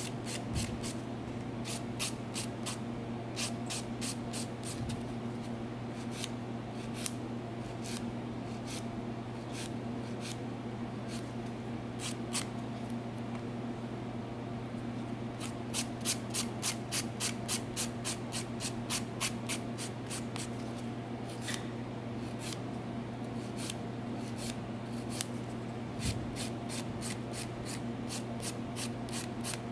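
Hand nail file rasping against a gel nail in runs of short strokes, quickest a little past the middle, as the gel is filed off during gel-nail removal. A steady low hum runs underneath.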